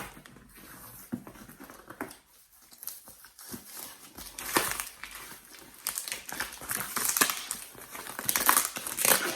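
Care-package packaging crinkling and rustling as items are handled, in irregular bursts that get busier about halfway through.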